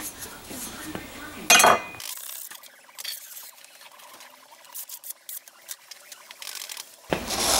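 Rubbing and scraping as a test smear of tinted concrete slurry is wiped off a tabletop, with a sharp scrape about one and a half seconds in and thinner, quieter rubbing after it.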